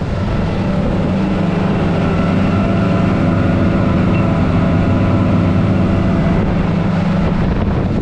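Twin Yamaha 300 outboard motors running steadily at speed, a constant engine drone over the rush of water from the wake.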